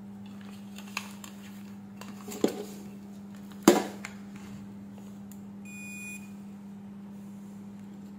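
Handling sounds as a digital multimeter is picked up and its test probes are put to a circuit board: a few sharp clicks and knocks, the loudest about three and a half seconds in. A short electronic beep comes about six seconds in, over a steady low hum.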